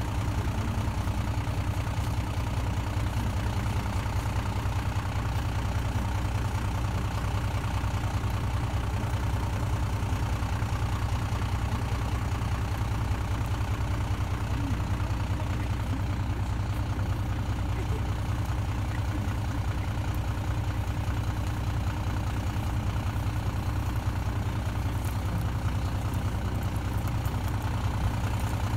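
An engine idling with a low, even rumble that holds steady throughout.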